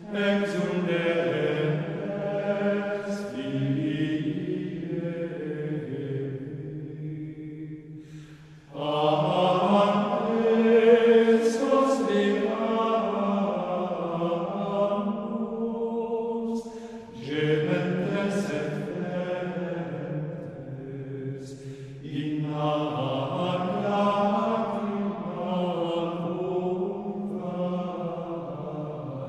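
Slow, solemn sung chant used as background music: long held vocal notes in several extended phrases, each phrase starting again after a brief dip in loudness.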